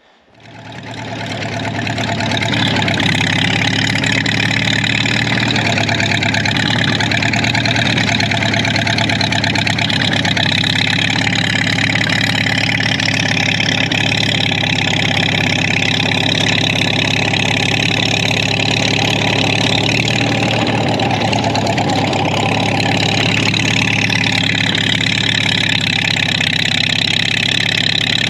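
Two-stroke engine of an Arctic Cat Jag 340 snowmobile running steadily. It fades in over the first couple of seconds, and its pitch shifts a little now and then.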